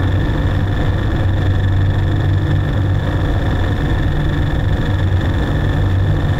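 Dense electronic noise drone from live electronics played through PA speakers: a steady low rumble under a hiss, with two high steady tones over it.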